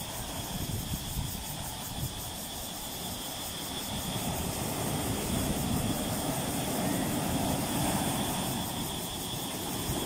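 Ocean surf breaking on the shore and washing in around boulders. The rush of water swells from about halfway through as a wave breaks and its foam surges up among the rocks, then eases slightly near the end.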